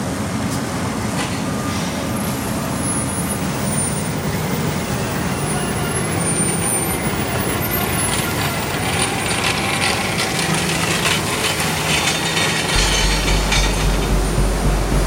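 Heavy diesel road-construction machinery and trucks running, a steady engine and mechanical din. A deeper low rumble with a regular pulse comes in near the end.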